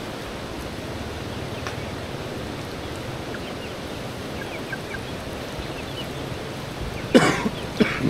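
Faint chicken peeps over a steady outdoor hiss, with two short, loud sounds in quick succession near the end.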